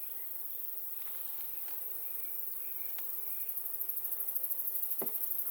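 Honeybees humming from an opened hive, with a high insect chirring that starts pulsing rapidly past the middle. A sharp knock comes about five seconds in.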